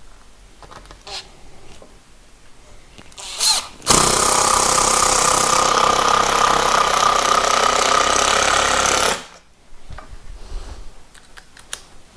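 Power driver driving a screw into timber: a short blip of the motor, then one long steady run of about five seconds that stops suddenly.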